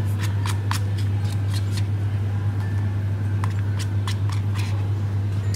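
Irregular sharp little clicks over a steady low hum, with more clicks in the first half.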